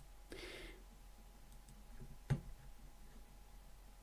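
A single sharp computer mouse click a little past halfway, over faint room tone, with a brief soft hiss near the start.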